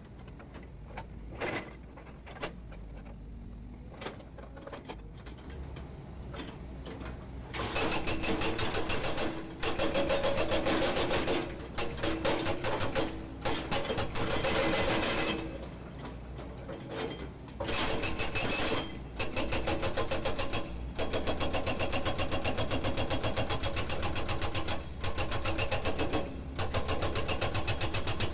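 Hydraulic breaker on a Volvo EC210D excavator hammering a block of concrete pile offcut with rapid, evenly spaced blows. It starts about a quarter of the way in and then runs in bursts of one to four seconds with short pauses between. Before that, only the excavator's engine hum and a few scattered knocks are heard.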